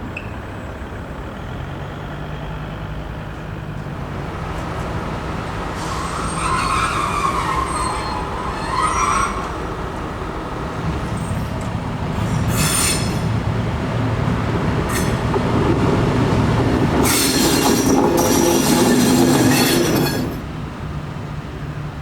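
Green Cargo T44 diesel locomotive running during freight shunting, its engine a steady low hum. About six seconds in, steel wheels squeal on the rails for a few seconds. Late on, a louder stretch of rail noise lasts about three seconds and stops abruptly.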